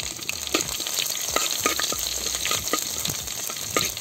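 Garlic cloves and mustard seeds sizzling in hot oil for a South Indian tempering, a steady hiss with many sharp crackling pops. The pan is stirred by hand.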